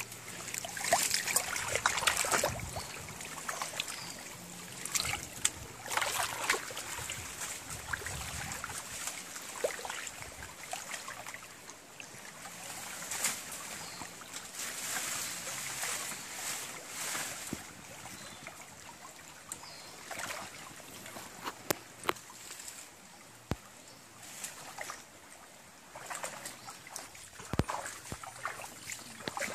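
Shallow stream water splashing and trickling in irregular bursts as hands and feet work in it, with scattered sharp clicks.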